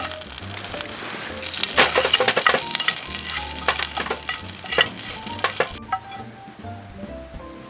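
Food frying in a pan, a dense sizzle with sharp spattering crackles that builds about a second and a half in and cuts off suddenly near the end.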